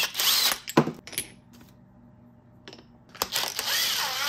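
Cordless impact wrench running a nut onto a differential flange shaft in two short trigger pulls. Its motor whirs up and winds down near the start, and again from about three seconds in. A couple of knocks of metal on metal fall in the pause between. The nut is only run on far enough to push the flange on; it is not yet torqued.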